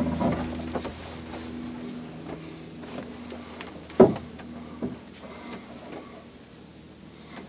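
Handling noise of a scoped hunting rifle: scattered small clicks and knocks, with one sharp knock about four seconds in and a smaller one just under a second later. A low steady hum stops about two seconds in.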